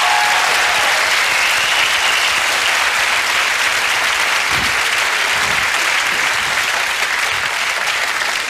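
Studio audience applauding, a dense, steady clapping.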